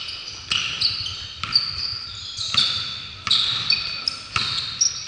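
Basketball sneakers squeaking on a hardwood court as players cut and shuffle, with a basketball bouncing. There are sharp squeaks and knocks every half second to a second.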